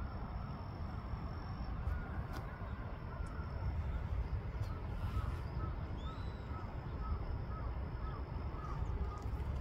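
Outdoor ambience at a hilltop lookout: a steady low rumble, with a run of faint short chirps, about two a second, through the middle.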